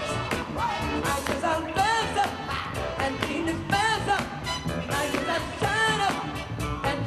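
Upbeat dance music with a singing voice over a steady drum beat, a melodic phrase repeating about every two seconds, played for locking.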